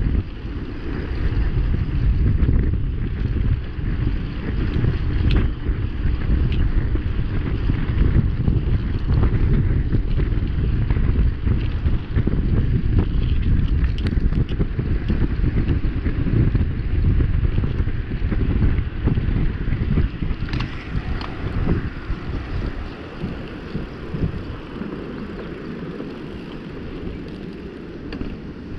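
Wind buffeting the action camera's microphone as a mountain bike descends a paved road at about 30 km/h, with a few sharp clicks and rattles from the bike. The noise dies down over the last few seconds as the bike slows almost to a stop.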